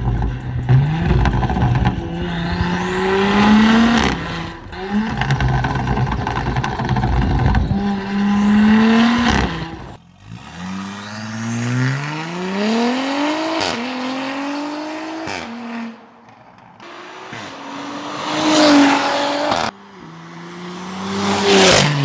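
Modified Audi SQ5's turbocharged V6, running through a catless downpipe and Integrated Engineering cat-back exhaust, accelerating hard. The engine note climbs through each gear and drops at each upshift, repeating several times, with brief lulls between pulls.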